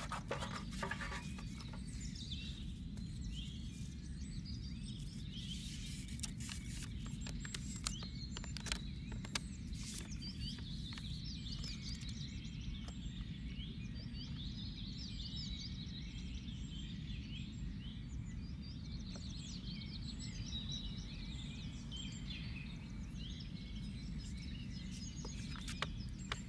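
Outdoor ambience of songbirds chirping and singing over a steady low rumble. Scattered clicks and rustles, mostly in the first half, come from paper being handled in a tin box.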